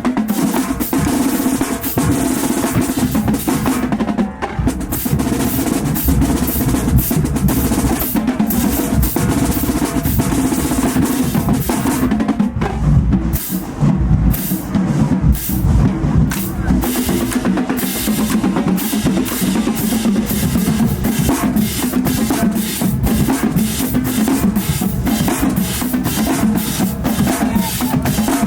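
Marching band drumline playing a cadence: rapid snare drum strokes and rolls over bass drums.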